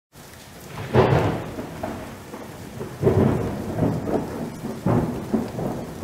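Wind buffeting the microphone, an uneven rushing noise with strong gusts about one, three and five seconds in.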